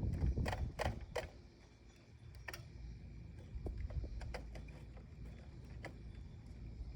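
Handling of the anemometer/rain gauge weather sensor unit: several sharp clicks in the first second and a half and another a second later, then lighter ticks and taps. Low wind rumble on the microphone throughout.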